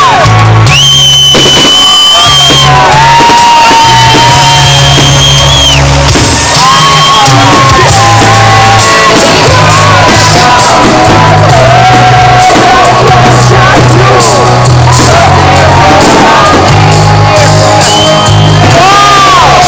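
Loud music with a pulsing bass line and long held high melody notes.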